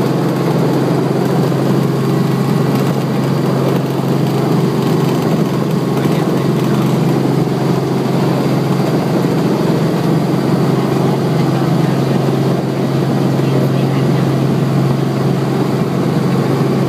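Helicopter engine and rotor running steadily, heard from inside the cabin: a loud, unchanging low drone.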